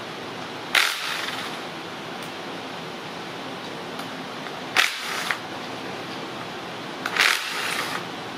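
Cordless impact driver running out the bolts of the 2.4 MultiAir engine's solenoid plate, in three short bursts: about a second in, near the middle, and near the end.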